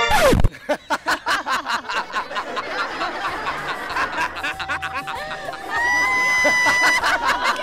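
Several people laughing hard together in rapid, breathy pulses, with some drawn-out laughing cries after the midpoint. It opens with a sudden loud burst whose pitch drops steeply.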